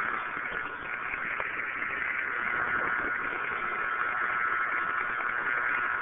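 Radio static from a radio's speaker: a steady hiss and crackle, strongest in the upper middle of the range, from interference that the owner puts down to a mobile phone beside the radio.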